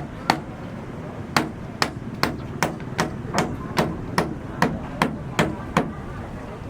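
A hammer striking repeatedly in a steady rhythm, about two and a half blows a second, each a sharp knock with a short ring. The blows stop about a second before the end.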